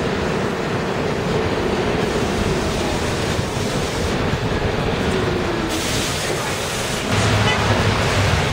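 New York City subway train moving along the station platform: a steady rumble of wheels on rail, with a motor whine that drops in pitch about halfway through. A harsher hiss joins it in the last few seconds.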